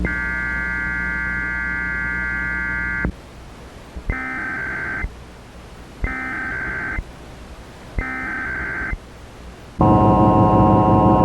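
EAS alert tones. A steady electronic tone with a low hum runs for about three seconds, followed by three one-second bursts of SAME header data about a second apart. Near the end the loud two-tone EAS attention signal begins.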